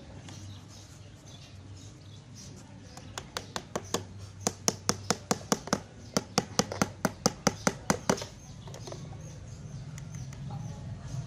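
Hammer tapping a thin bamboo stake into the ground: a quick run of sharp taps, about four or five a second, that stops a little past the middle.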